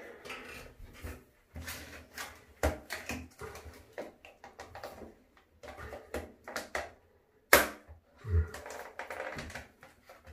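Packaging being handled and opened: a run of irregular rustles and small clicks, with one sharp snap about three-quarters of the way through.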